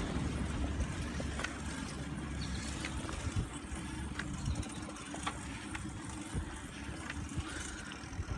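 Riding a bicycle: low wind rumble on the microphone and tyre noise, with a few scattered clicks and rattles from the bike.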